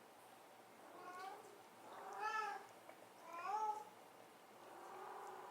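Kitten mewing: three short, high-pitched mews about a second apart, then a fainter, longer mew near the end.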